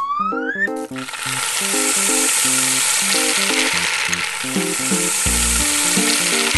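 A rising whistle glide, then a dense, hissing rattle of many small balls pouring into a blender jar, as a cartoon sound effect over background music.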